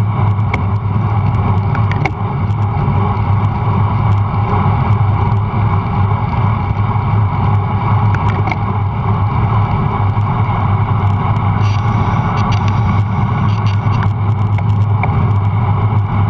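Steady rush of wind over the microphone of a camera mounted on a moving road bike, mixed with the rolling noise of bicycle tyres on asphalt, with a few light clicks.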